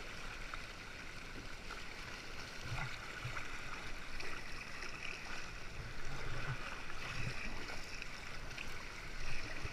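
Sea water lapping and gurgling against a kayak's hull, with soft low knocks now and then, in choppy water among sea cliffs.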